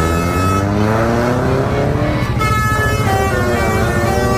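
Multi-tone telolet horn on a Koswara Trans bus playing a tune: several tones sound together and step upward in pitch, with the bus engine running steadily underneath.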